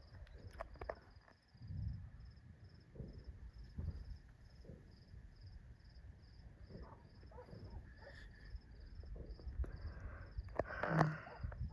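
Crickets chirping steadily in a regular high-pitched pulse, about two to three chirps a second, over low rumbling noise with a few dull thuds, the loudest shortly before the end.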